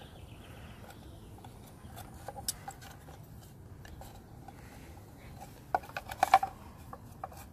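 Light clicks, taps and scrapes of plastic and metal as a circuit board, its wires and needle-nose pliers are handled in a small plastic control box. A quick cluster of louder clicks comes about six seconds in.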